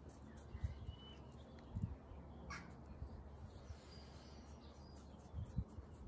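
Quiet outdoor background with a few faint, short, high chirps and some soft low bumps.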